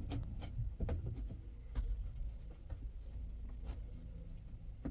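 Light scraping and scattered clicks of metal parts being handled and pushed into place: an old accelerator pedal being wedged against a new pedal assembly under a truck's dash.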